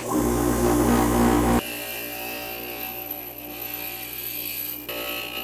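Inland glass grinder running steadily, its motor humming as cut porcelain pieces are ground smooth at the edges. The sound drops abruptly about a second and a half in and shifts again near the end.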